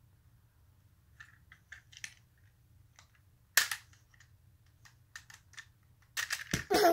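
Hard plastic clicks and snaps of a Tobot V transforming toy car being handled as two car halves are pushed together, with one sharp loud snap about halfway through and a quick run of louder clicks near the end.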